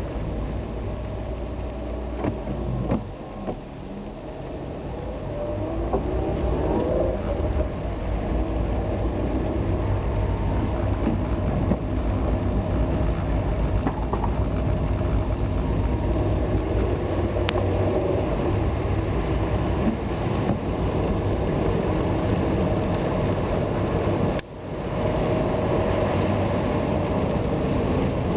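Road vehicle driving: steady engine and road noise that eases off about three seconds in and builds back up over the next few seconds, with a brief drop near the end.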